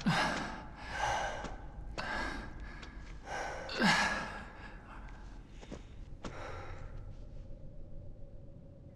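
A man's heavy breathing after exertion: a string of loud breaths and sighs about a second apart, the loudest about four seconds in, then dying away to a faint steady hum.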